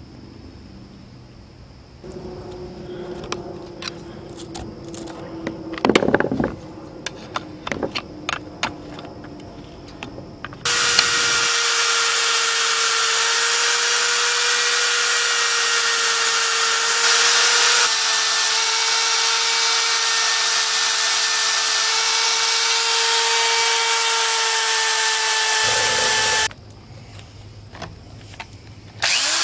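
Scattered metallic clicks and knocks from handling a chainsaw, then a handheld electric chainsaw-chain sharpener running with a steady high whine and hiss for about fifteen seconds as its grinding stone sharpens the chain's cutters. It stops near the end and spins up again just before the end.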